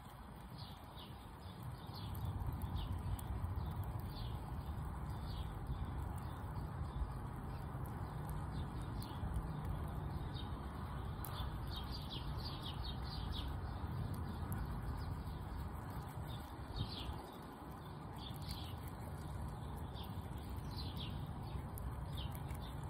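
Small birds chirping in short, scattered high calls, with a quick run of chirps about halfway through, over a low steady rumble.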